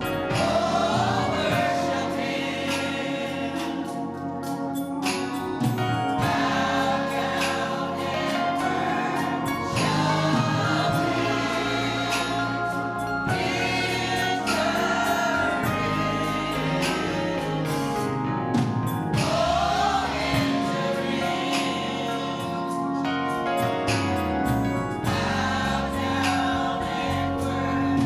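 Gospel choir singing a church song with musical accompaniment.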